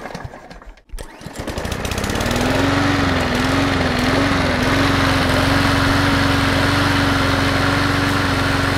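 A small lawn mower engine starts up about a second in. Its pitch climbs and wavers briefly, then it settles into a steady run at speed.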